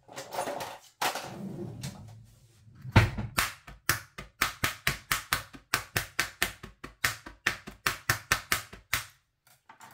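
A kitchen knife stabbing repeatedly through the plastic film lid of a foil tray of frozen curry: a quick run of sharp taps, about four a second, starting about three seconds in and lasting some six seconds, after a little handling noise.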